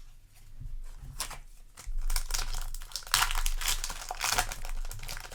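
Foil Yu-Gi-Oh! booster pack wrappers crinkling as they are handled, starting about two seconds in and loudest in the middle.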